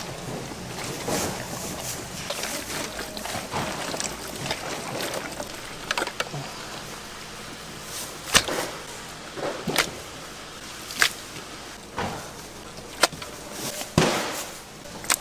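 Chicken frying in a cauldron of hot oil with a steady hiss; from about halfway, sharp knocks come about once a second.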